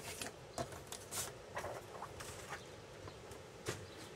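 Scattered light clicks, taps and rustles as a paper trimmer and a freshly cut piece of laminated paper are handled and set aside, the sharpest tap coming near the end.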